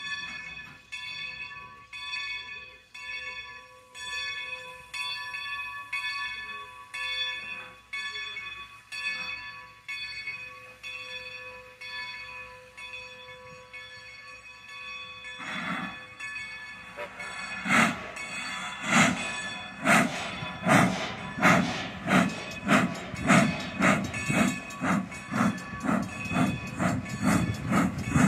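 Ex-Great Western #90 steam locomotive's bell ringing steadily. A little past halfway there is a burst of steam hiss, then heavy exhaust chuffs start, about one a second and growing louder, as the locomotive starts off with its train.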